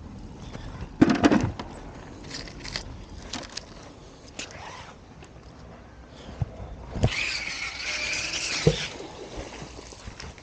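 Knocks and clanks of magnet-fishing gear being handled. About seven seconds in comes a squealing scrape lasting nearly two seconds, which ends in a thump.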